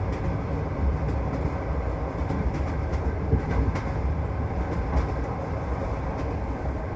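Passenger train carriage running on the rails, heard from inside: a steady low rumble of wheels on track, with a few light clicks from the rail joints.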